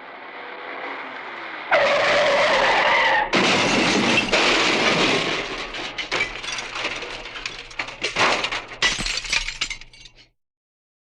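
Car-crash sound effect: a rising approach, then tyres screeching for about a second and a half, then a loud crash with shattering glass. Pieces of debris and glass clatter down, thinning out over the next several seconds.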